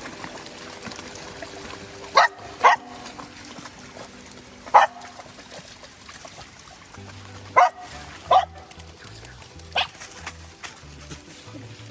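Small dogs barking: six sharp barks, some in quick pairs, over background music whose bass beat comes in about two-thirds of the way through.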